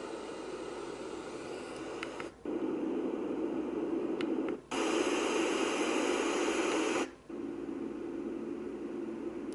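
Elesories white noise machine playing steady hiss-like noise sounds and switching to a different sound three times, each change marked by a short break. The fourth sound is the brightest and loudest hiss. A faint click comes just before the first two changes.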